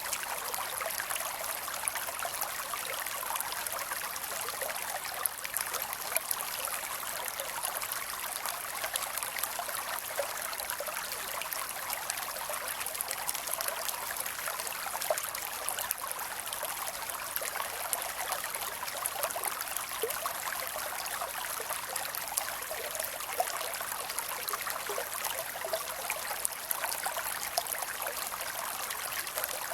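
Creek water running and trickling over rocks: a steady, even babble with small splashes flickering through it.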